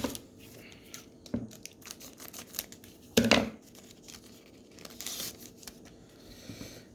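Paper card-pack wrapper being torn open and crinkled by hand, a few short rips with the loudest about three seconds in.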